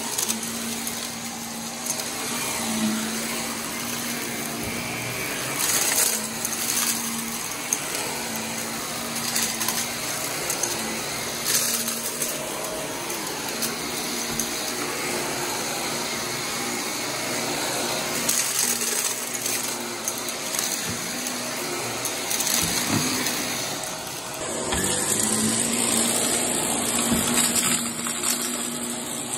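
Upright vacuum cleaner running steadily on carpet, its motor humming as it is pushed back and forth, with occasional small clicks. Near the end a high whine comes in as it is worked along the baseboard.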